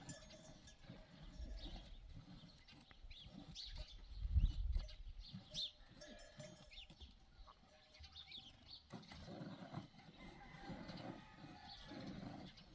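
Farmyard sound with small birds chirping throughout and a dull thump about four seconds in. From about nine seconds in, a quick rhythmic swishing that fits a cow being milked by hand, jets of milk hitting the pail.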